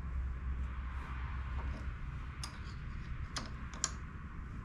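A few light, sharp metal clicks of a small hand tool working at the ignition breaker points of a Honda CA160 twin, over a steady low hum.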